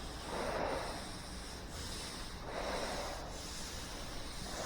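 Hand block-sanding of body filler on a car roof: slow, rasping back-and-forth strokes of sandpaper on a sanding block, swelling about once every two seconds.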